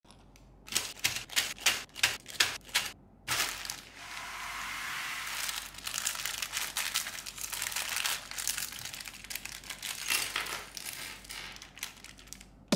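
About eight sharp clicks and taps, then packaging crinkling and tearing steadily with scattered crackles as the minifigure set is unboxed.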